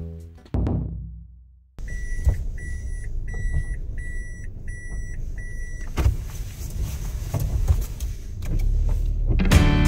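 A car's warning chime beeps about twice a second for about four seconds, heard inside the cabin over a steady engine hum. A knock comes about six seconds in, and the low engine noise grows louder near the end. Guitar music fades out at the start and comes back in at the end.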